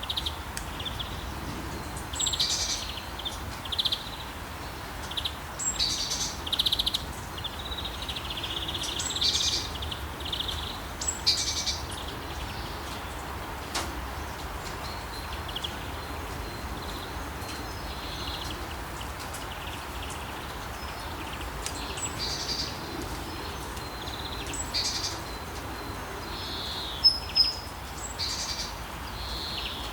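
Birds calling and chirping in short high phrases about every two seconds over a steady background hiss, with two sharp high notes near the end.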